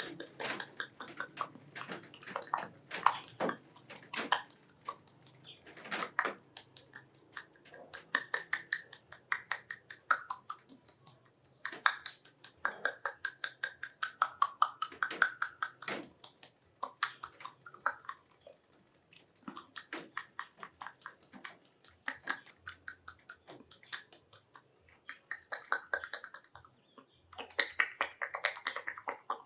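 Wet mouth sounds made with a little water held in the mouth and a small water bottle: rapid trains of smacking, slurping clicks in bursts with short pauses, and a few higher held tones mixed in. It is a homemade foley effect imitating the sounds of a love scene.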